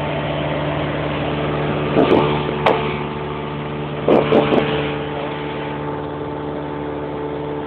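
Cessna 172's piston engine and propeller droning steadily, with a few brief clicks about two and four seconds in.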